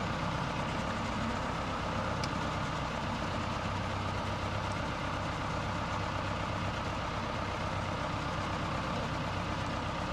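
Diesel engine of a lifeboat launch tractor idling steadily with a low, even hum.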